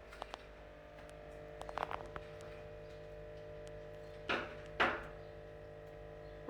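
Kitchen handling noises from food preparation: a few light knocks and clicks, then two short clattering scrapes about half a second apart, over a steady hum.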